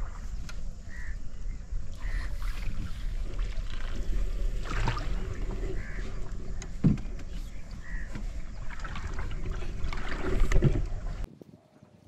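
Small boat moving through shallow marsh water, with splashing and knocking from the paddle or pole over a steady low rumble, and a few short bird calls. The sound cuts off suddenly near the end.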